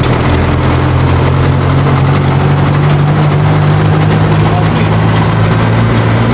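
Csepel D-350 fire truck's diesel engine running steadily as the truck drives along, heard from inside the cab as a loud, even low drone.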